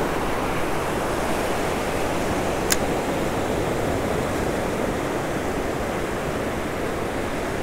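Ocean surf washing up the beach in a steady rush, close by, with one brief sharp click a little under three seconds in.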